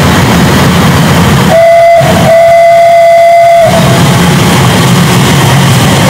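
Class 345 electric train's horn sounded twice on one steady tone: a short blast, then a longer one of about a second and a half, over a steady low rumble.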